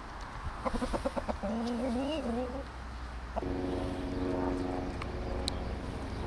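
Chicken clucking in a quick run of short notes, then a wavering, drawn-out call. About halfway through, a steady low hum starts and holds.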